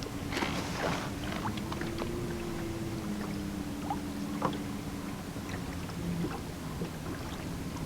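Boat motor running steadily at low speed, with a few light clicks and knocks over it.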